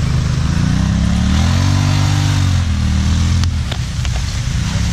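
Side-by-side UTV engine revving up under load as it drags a fallen tree by a tow strap, holding the revs for about two seconds, then dropping back with a couple of sharp cracks.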